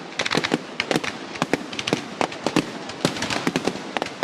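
Fireworks going off in a rapid, irregular string of sharp bangs and cracks, several a second.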